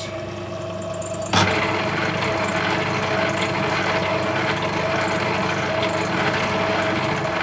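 Myford Super 7 metal lathe running in reverse under its motor, with the half nut engaged to back the threading tool out along the thread. It is a steady machine hum with a sharp knock about a second and a half in, after which it runs louder.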